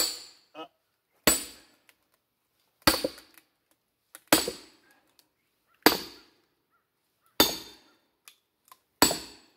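Hammer blows ringing on a steel splitting wedge, seven strikes about a second and a half apart, driving a second wedge into a round whose split is still hung up.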